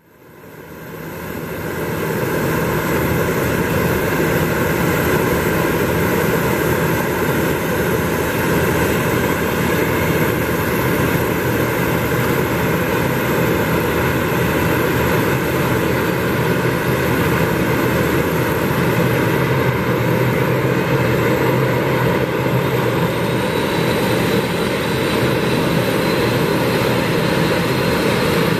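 Bombardier Dash 8 Q400's Pratt & Whitney PW150 turboprop engine starting: a loud, steady turbine whine and rumble that fades in at the start. A high whine rises slowly near the end as the engine spools up and the propeller speeds up.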